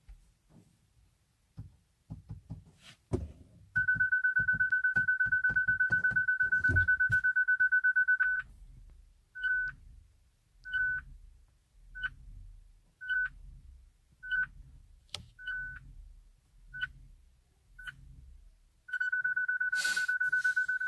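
Hyundai Ioniq Electric's warning chime in the cabin: one steady high beep for about four seconds, then short beeps about once a second, then a steady beep again near the end. Clicks and knocks sound in the first few seconds.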